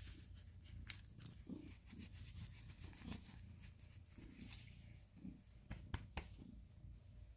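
Ginger cat purring faintly, a low pulsing rumble, under rustling and a few sharp clicks from a hand stroking its fur.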